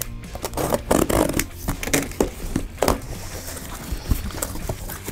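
Box cutter slitting the packing tape on a cardboard shipping box, a run of irregular scrapes and sharp clicks, followed by the cardboard flaps being pulled open and the contents handled.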